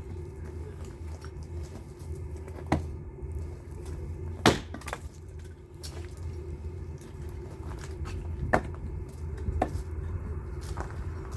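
Firewood knocking and cracking: four sharp wooden knocks, the loudest near the middle, over a steady low hum.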